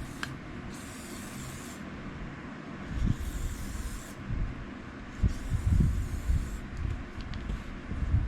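Aerosol can of WD-40 sprayed onto freshly re-blued steel knives in three bursts of about a second each, with low knocks from handling in between.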